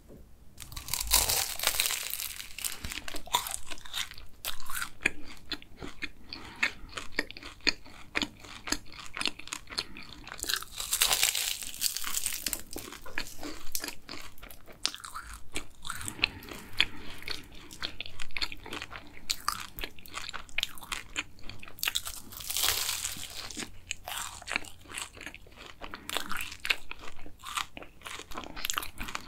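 Close-miked biting and chewing of a dark-chocolate-glazed cronut, the flaky layered pastry crunching and crackling under the teeth. Louder crunching bites come about a second in, near the middle and about three-quarters through, with steady chewing between.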